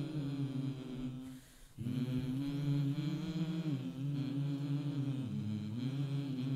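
Sholawat, Arabic devotional praise of the Prophet, chanted by voices without audible drums, holding long sustained notes. There is a short break for breath about a second and a half in.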